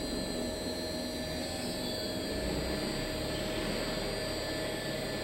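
Welding rotator drives running steadily: a constant motor whine made of several steady tones over a low hum, during a variable-speed function test.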